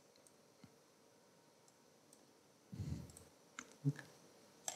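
Faint clicking at a computer as spectrometer software is operated. After a soft low rustle, a few sharp clicks come in the second half.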